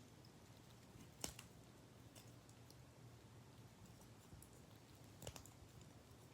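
A few faint clicks of a plastic infinity cube fidget being folded over in the hands, the clearest about a second in and another near five seconds in.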